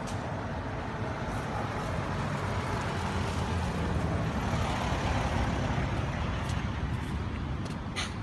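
Road traffic noise: a steady low rumble of passing vehicles, swelling a little around the middle as one goes by.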